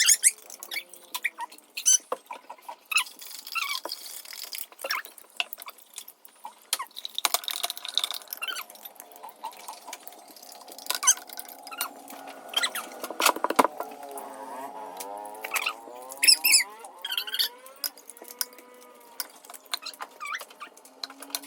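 Scattered sharp clicks and knocks of kitchen items being handled, with a wavering pitched sound through the middle.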